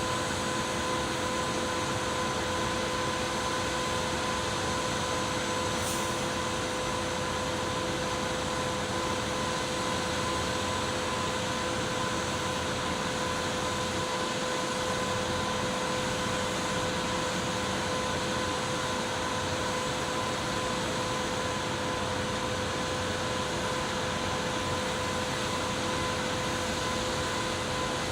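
A machine running at a constant speed: a steady, unchanging drone with a constant hum and no strokes or knocks.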